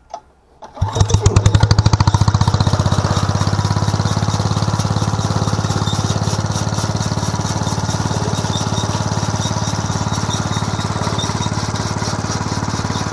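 Small 3.5-horsepower single-cylinder gasoline engine on a miniature hay baler catching about a second in, then running steadily at a fast even beat.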